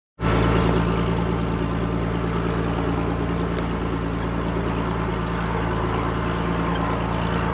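Vehicle engine running at a steady speed, coming in suddenly just after the start.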